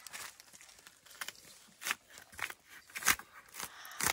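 Bark being torn off a young stringybark (gaḏayka) trunk by hand: faint crackling, then a run of sharp splitting cracks about every half second from about halfway through, the loudest a little after that.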